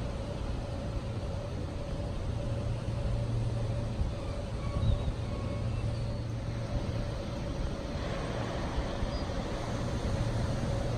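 Steady low hum and rumble of railway-station and city background at night, with a faint steady tone above it. About eight seconds in, a hiss rises as the Sunrise Seto/Izumo sleeper, an electric train, draws slowly into the station.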